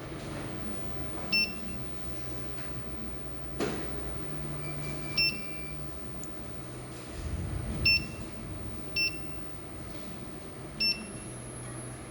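Short electronic beeps, five of them at irregular intervals, each a brief two-note tone, with one longer single tone about five seconds in. They sound over a steady low hum and a faint constant high whine.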